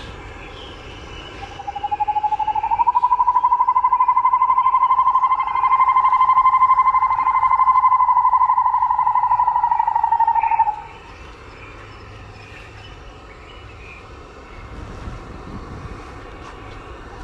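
Cicada calling: a loud, rapidly pulsing high whine that rises in pitch as it swells up over its first second, holds steady for about eight seconds, then cuts off suddenly.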